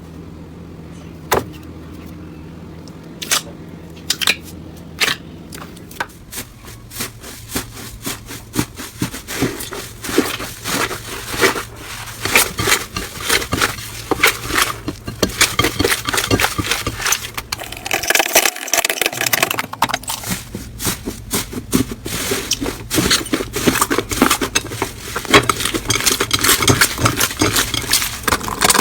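Slime being squeezed and pressed by hand, giving a stream of small crackles, pops and squelches. The clicks are sparse at first and grow dense after about six seconds.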